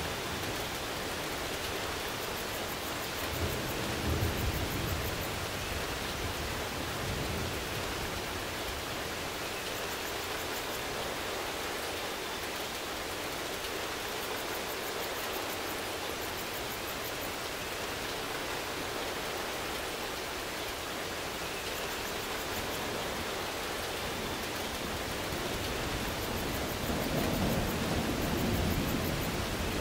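Steady rain, an even hiss, with low rumbles of thunder about four seconds in and again building near the end.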